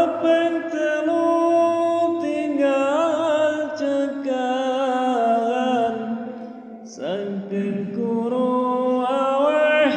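A solo voice chanting pujian, the devotional song sung in a mosque before the call to prayer, in long held notes with wavering ornaments. It breaks off for a breath about six and a half seconds in and starts a new phrase a moment later.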